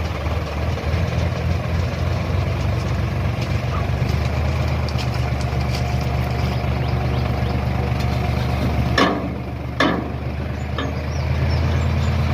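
Sonalika DI-750 tractor's diesel engine running steadily, with two sharp knocks about a second apart near the end.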